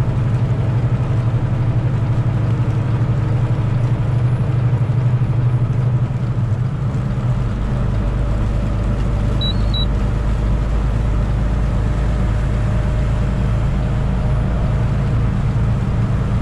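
Semi truck running down the road in snow, a steady low engine and road drone whose deepest rumble grows stronger about seven seconds in. Two short high beeps sound about ten seconds in.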